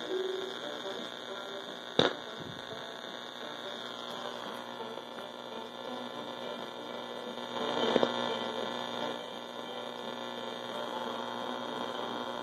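1939 Lumophon WD507 tube radio's speaker giving a steady buzzing hum and hiss. This is interference that the owner puts down to a wall charger somewhere. A sharp click comes about two seconds in, and a brief louder swell near eight seconds.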